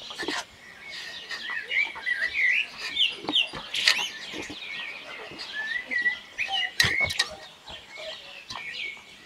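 Small birds chirping and calling, many short notes bending up and down in pitch, with a couple of sharp clicks about four and seven seconds in.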